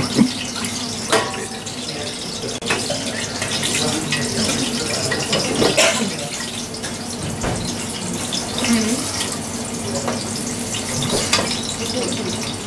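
Steady kitchen hiss with a low hum, broken by a few sharp clinks of a metal spoon against a stainless steel pot.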